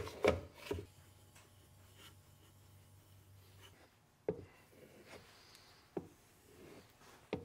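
Sharp knocks of a steel plane iron and sharpening stones being set down and handled on a wooden bench, three in the first second and a few more later, with light scraping as the plane iron is rubbed on a sharpening stone.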